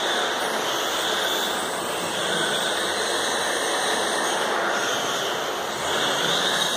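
Radio-controlled electric cars lapping an indoor carpet track: a steady high motor whine over tyre noise, swelling and fading as the cars accelerate and brake.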